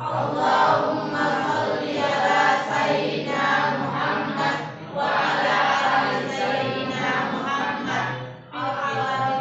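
A group of voices singing together in unison, in long phrases with brief breaks about five seconds in and again near the end.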